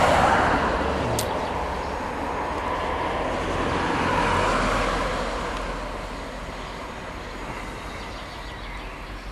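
Cars passing on a street: tyre and engine noise swells as one goes by at the start and another about four seconds in, then fades away. A brief click about a second in.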